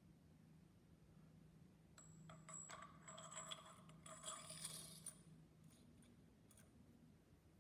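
Faint metallic clinks and light scraping from the steel races and caged balls of a large ball thrust bearing being handled and slid onto a lathe spindle, clustered between about two and five seconds in, with brief ringing.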